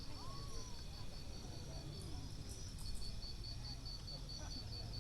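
Insects trilling in a steady high pulse, about five beats a second in the second half, over a low rumble, with a few faint brief calls rising and falling.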